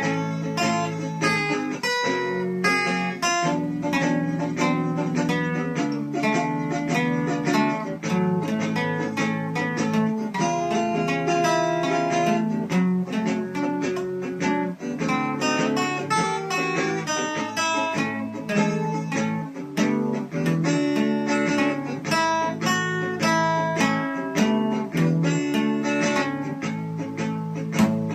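Acoustic guitar played without singing: a steady stream of quick picked notes over strummed chords.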